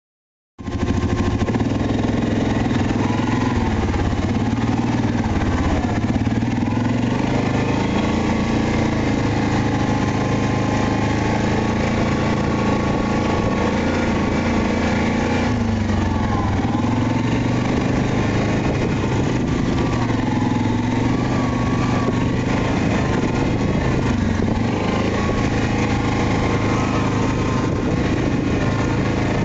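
Yamaha Grizzly 700 ATV's single-cylinder engine running steadily while riding a trail, its pitch easing up and down a little with the throttle.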